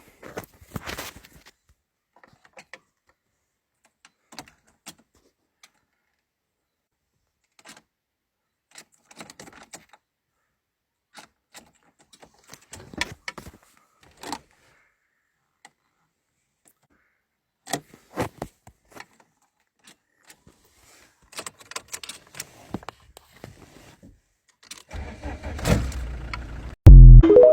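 VW Golf Mk2 ignition attempt: scattered clicks and jingling of keys, then near the end a couple of seconds of starter cranking that ends in a loud burst. The attempt is made without the clutch pressed, a condition in which this car does not start.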